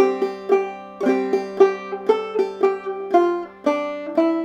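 Five-string open-back banjo in modal tuning, played clawhammer style: a steady run of plucked melody notes with brush strokes and fifth-string thumb notes, several strikes a second, the strings ringing over one another.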